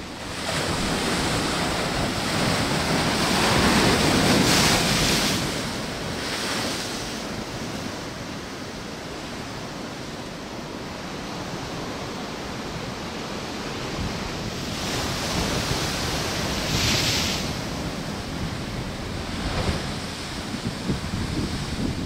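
Heavy storm surf raised by a distant hurricane crashing against a rocky shore and seawall, swelling to a big breaking wave about four seconds in and another about three-quarters of the way through. Wind buffets the microphone with a low rumble throughout.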